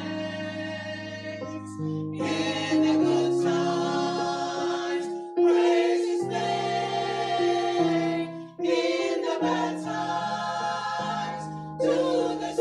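Church choir singing in harmony, holding chords that change every second or two.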